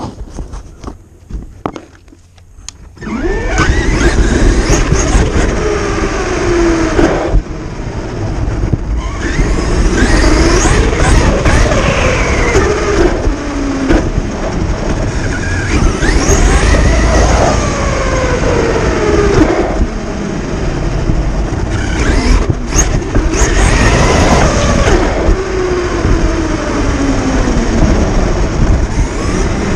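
Electric Traxxas RC truck driving on concrete. After about three seconds of faint clicks, the motor and drivetrain start a loud whine that rises with throttle and slides down as it lets off, over and over, over a steady rushing noise.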